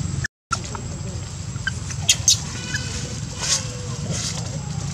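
Dry leaf litter rustling and crackling as macaques move on it, with a few short high chirps and squeaks over a steady low hum. The sound drops out completely for a moment near the start.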